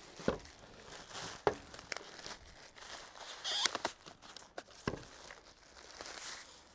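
Thin plastic wrapping rustling and crinkling as a plastic mower bumper is pulled out of it, with a few light knocks and a louder rustle about three and a half seconds in.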